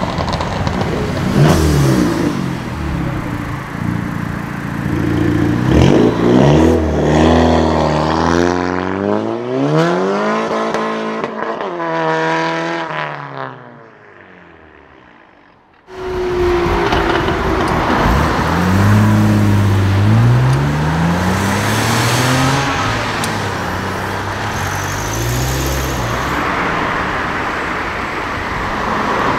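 A pink Audi RS6 Avant's twin-turbo V8 accelerating away hard, revving up and dropping back repeatedly as it shifts through the gears, then fading into the distance. After an abrupt cut, another car revs up and accelerates away over steady traffic noise.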